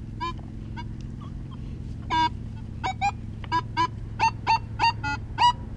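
Geese honking: a run of short calls, a few scattered at first, then coming quickly, about three a second, from about two seconds in.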